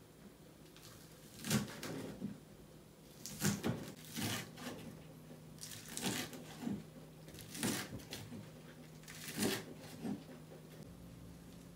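Food-prep handling noises: about eight short, irregular rustles and crunches as fresh greens and plastic food containers are handled on a kitchen counter, over a faint steady low hum.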